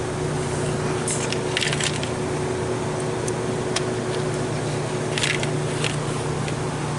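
A few short rustles and clicks of parts being handled during the transmission work, bunched about a second or two in and again about five seconds in, over a steady machine hum.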